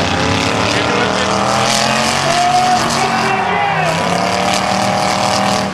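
Several demolition derby cars' engines revving hard and changing pitch as the cars accelerate and back up, with a few sharp knocks of cars hitting.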